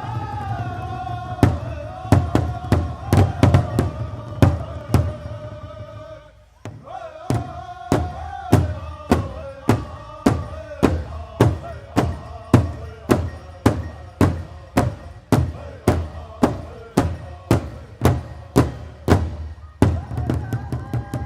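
Powwow drum group singing a chant over a large shared drum struck in unison, at about one and a half beats a second. The drum and singing drop out briefly about six seconds in and then start again. The drumming stops near the end while the singing carries on.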